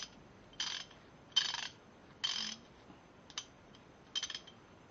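Quick-release socket ratchet worked back and forth, its pawl clicking in short bursts about once a second, with a single sharper click between two of them.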